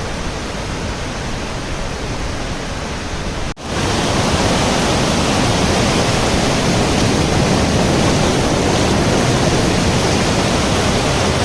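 Waterfall: a steady rush of falling water. About three and a half seconds in it breaks off for an instant and comes back louder.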